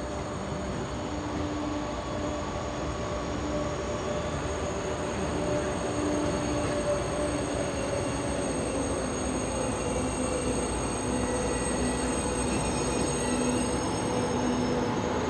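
KTX-Sancheon high-speed electric train moving through the station: a steady rumble with a low electric whine that drifts slightly down in pitch while the sound grows gradually louder.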